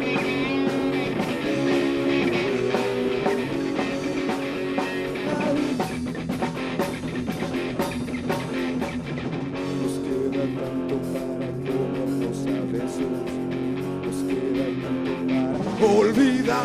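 Rock band playing an instrumental passage: guitars over a drum kit, between sung lines of the song.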